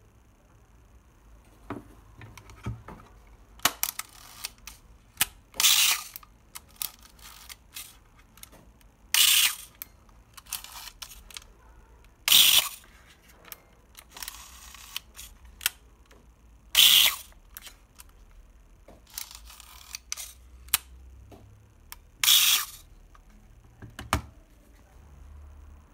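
Horizon 202 swing-lens panoramic camera mechanism being worked by hand: light clicks and ticks, and about six loud bursts of mechanical noise, each roughly half a second long, coming every two to five seconds.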